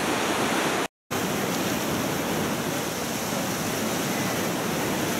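Steady rushing of a fast mountain river, cut by a brief dropout to silence about a second in.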